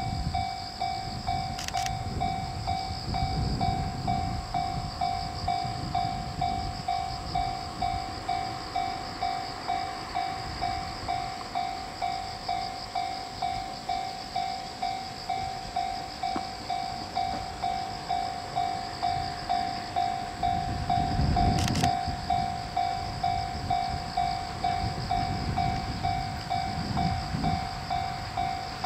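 Japanese level-crossing warning bell ringing steadily, about two dings a second, each ding fading quickly. Beneath it, a low rumble from the approaching 455-series electric train, swelling about two-thirds of the way through.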